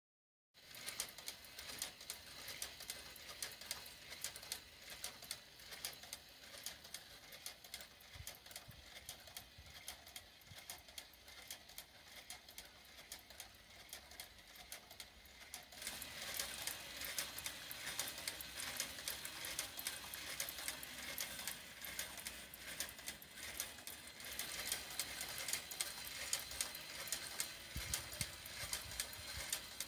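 Meccano model horizontal gas engine turning over with a rapid, steady clatter of clicks from its crank and rods, louder from about halfway through. The knocking sounds like a big-end knock, or something worse, to its builder.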